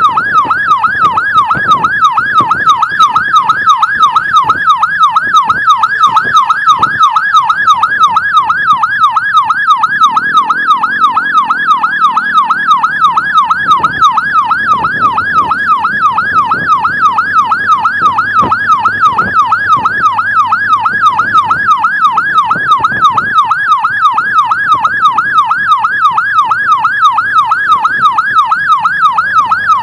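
Electronic emergency siren on a fast yelp, its pitch sweeping up and down about three times a second without a break.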